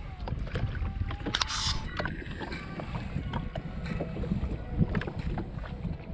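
Wind buffeting the microphone and small waves lapping against the hull of a drifting jetski, with scattered knocks and a short hiss about a second and a half in.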